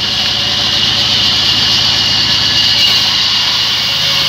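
Large sawmill band saw running steadily while its blade rips lengthwise through a log slab fed by hand: a constant high hiss over a fast, even low pulsing from the machine.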